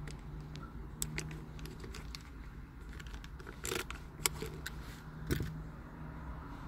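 A handful of short clicks and clinks from keys being handled, a brief jingle among them, over a steady low hum inside a car's cabin.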